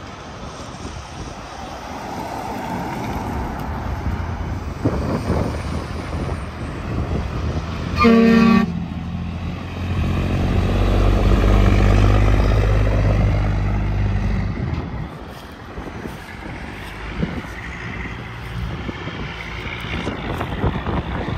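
A truck horn blown once, a short blast about eight seconds in, over steady highway traffic noise. A few seconds later a heavy truck passes close, its low engine and tyre rumble swelling and then fading.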